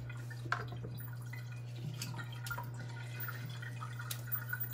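Water dripping in a kitchen sink, with a few light clicks as a fork pricks raw pumpkin pieces, over a steady low hum.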